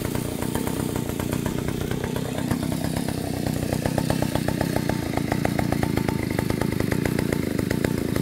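Dolpima BK-3A two-stroke chainsaw engine running steadily, unloaded, as at idle. Its pulsing beat becomes more even and a little louder about four seconds in.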